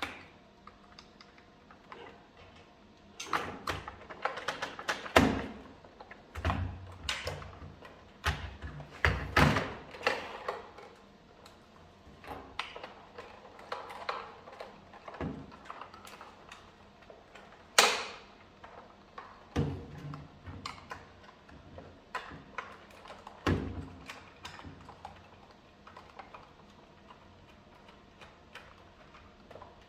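Irregular clicks, knocks and dull thuds of hard plastic parts and tools being handled while the vacuum cleaner's housing and battery pack are worked on, busiest in the first third, with one sharp loud click about halfway through.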